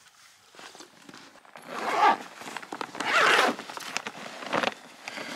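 Zipper on a fabric carry bag being pulled open in two long strokes, about two seconds and three seconds in, with rustling of the bag around them.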